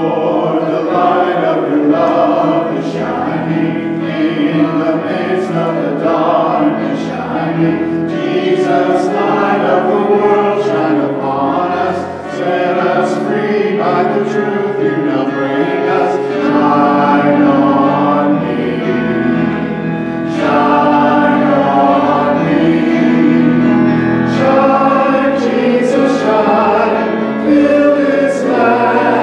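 Small church choir singing a hymn together, over low held accompaniment notes.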